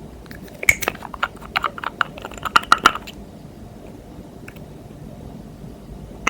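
A quick, irregular run of small sharp clicks and crackles for about two and a half seconds, like hands working slime and makeup. After that only a low steady hum, and a brief loud cluster of clicks at the very end.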